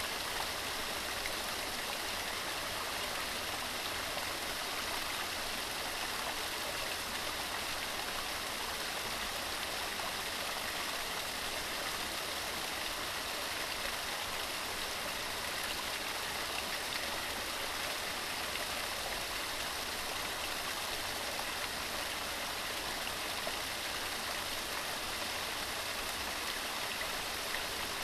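Waterfall: water rushing steadily, with no change in level.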